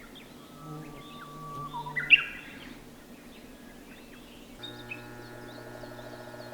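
Wild birds chirping and calling, with one loud call about two seconds in. Soft background music with sustained notes comes in about two-thirds of the way through.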